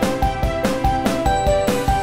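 Background music: an electronic track with a steady kick-drum beat, about two beats a second, under a repeating melody of short notes.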